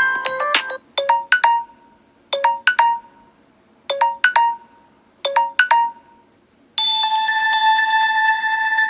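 Samsung Galaxy S7 Edge stock ringtones playing one after another. A busy melody ends under a second in, then a short three-note chime figure repeats four times with pauses. About seven seconds in, a new ringtone starts as a steady, sustained chime.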